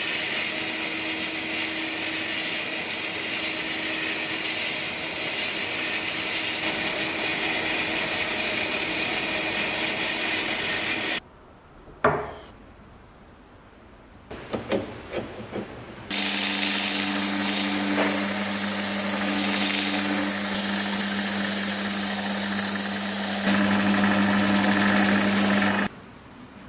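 Abrasive blasting in a blast cabinet: a steady, loud hiss of the blast gun with a constant hum underneath, which stops about eleven seconds in. After a few light knocks, a second machine runs loudly with a steady hum and hiss for about ten seconds, then cuts off.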